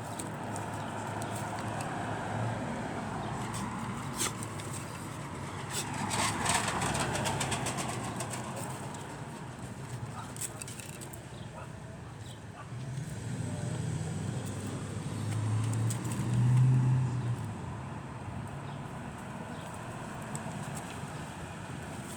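Two Cane Corso puppies play-fighting, with scattered scuffling clicks and a short louder low sound about sixteen seconds in.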